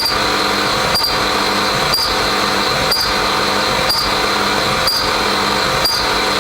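CNC vertical machining center cutting a part under program control: a steady high-pitched spindle-and-cutter whine, with a sharp click about once a second.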